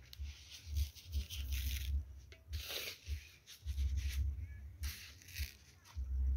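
Wind buffeting the phone's microphone in irregular gusts, with a deep rumble coming and going and bursts of rustling hiss.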